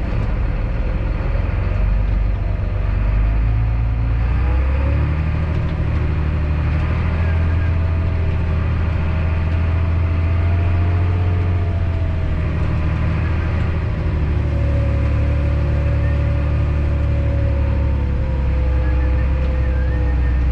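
A farm vehicle's engine runs steadily under load. Its note steps up about five seconds in and eases back slightly around fourteen seconds.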